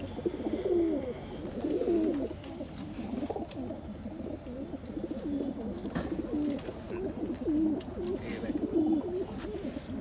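Several domestic pigeons cooing together, their low, wavering coos overlapping without a break.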